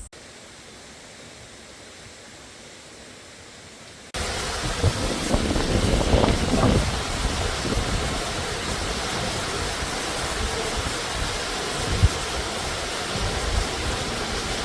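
Rushing water of a mountain stream and waterfall, a steady, even noise. About four seconds in it cuts abruptly to a much louder, closer rush of falling water, which then holds steady.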